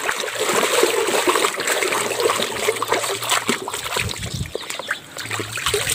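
Water sloshing and splashing continuously as a plastic toy is scrubbed by hand in a basin of soapy water.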